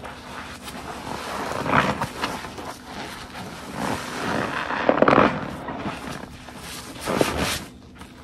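A sponge soaked with detergent being squeezed, with wet squelching and liquid pressed out in about four separate squeezes over a few seconds.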